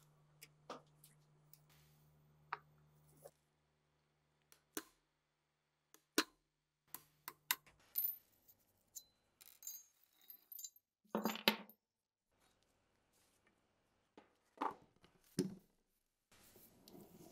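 Small rusty steel gun parts handled and set down on a metal bench vise: light metallic clicks and clinks, with a few louder clanks about eleven seconds in and again near fifteen seconds. Soft rubbing of metal near the end.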